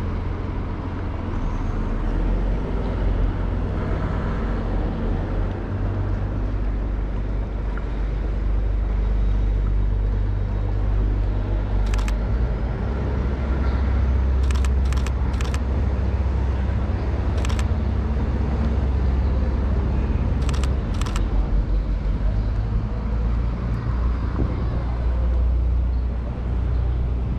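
Seven sharp camera shutter clicks from a Canon EOS R: one about twelve seconds in, a quick run of three a few seconds later, then one more and a close pair. They sound over a steady low rumble.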